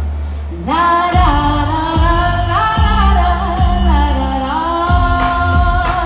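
A live pop band playing with a woman singing at the microphone. After a brief drop in the bass, her voice comes in with sliding notes and the bass and drums pick back up about a second in.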